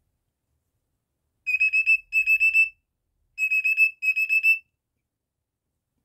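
Cockatiel mimicking a digital alarm clock: four quick bursts of high, even-pitched beeps, about four beeps to a burst, coming in two pairs.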